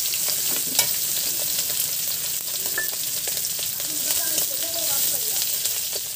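Fish heads and garlic sizzling steadily in hot oil in a metal kadai, stirred with a metal spatula that scrapes and clicks against the pan.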